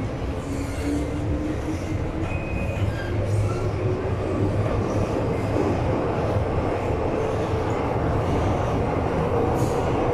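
MTR M-Train electric metro car running, heard from inside the car: a steady rumble of wheels on the track, with a faint whine that rises slowly in pitch.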